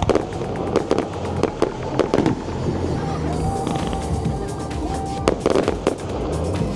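Fireworks bursting overhead: a quick, irregular series of sharp bangs and crackles.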